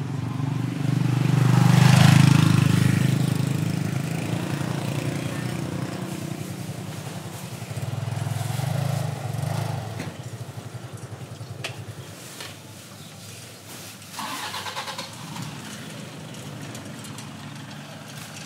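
A motorbike engine running close by, loudest about two seconds in and then fading, with a second shorter swell of engine sound around eight to ten seconds. A few short knocks and clatters follow in the second half.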